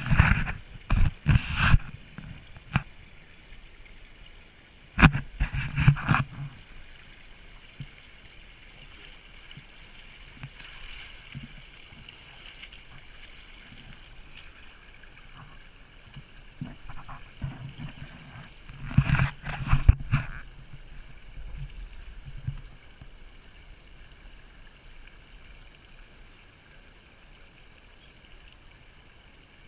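Creek water running steadily. Loud, short clusters of knocks and rustles come near the start, about five seconds in and about nineteen seconds in.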